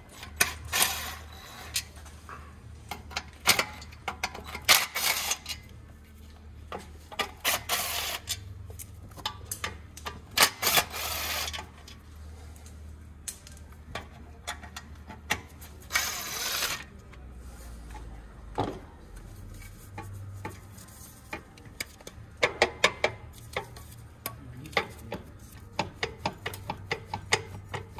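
Cordless drill-driver spinning out the clutch pressure plate bolts from a dual mass flywheel in about half a dozen short bursts, over a steady low hum. Near the end come quick metallic clicks and knocks as the loosened plate is handled.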